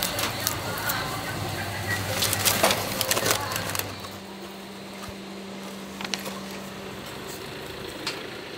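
Metal tongs clinking and scraping against a wire grill rack and steel tray as a grilled lobster is turned, over a steady low hum. About four seconds in the handling stops abruptly, leaving a quieter background hum with a few faint clicks.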